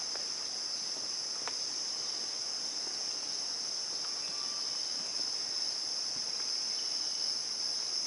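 Steady chorus of insects, a continuous high-pitched buzz, with a few faint short call notes over it.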